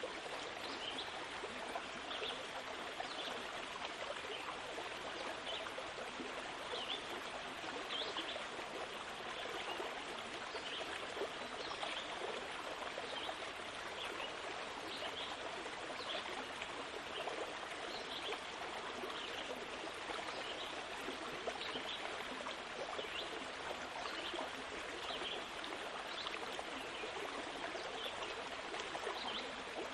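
Steady sound of running water, like a babbling stream, with frequent small high chirps or drips.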